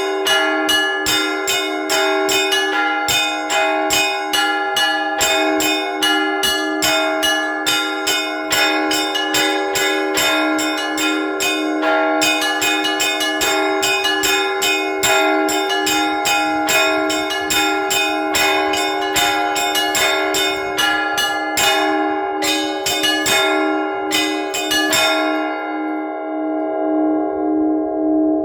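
Orthodox church bells ringing in a fast peal: smaller bells struck several times a second over the steady ring of the lower bells. About three seconds before the end the striking stops and the bells ring on, fading.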